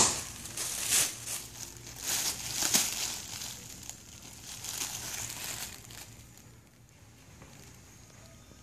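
Thin plastic shopping bag crinkling and rustling as a Ragdoll cat climbs out of it and paws and bites at it. The crinkling comes in loud, irregular bursts for about six seconds, then dies away.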